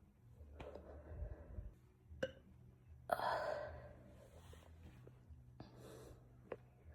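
A person breathing and straining to burp, with a short, breathy gulp-like sound about three seconds in and a few small mouth clicks; the burps are stuck and won't come up.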